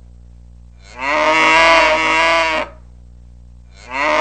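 Cow mooing, a recorded sound effect: one long moo about a second in, and another starting near the end, over a steady low hum.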